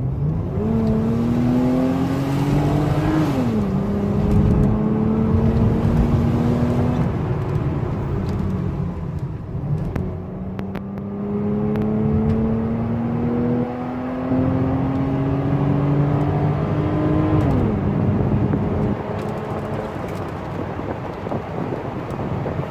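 Mercedes-Benz M104 2.8-litre straight-six in a C280 accelerating. The revs climb twice, the second time in a long steady rise, and each climb ends with a quick drop in pitch as the car shifts up.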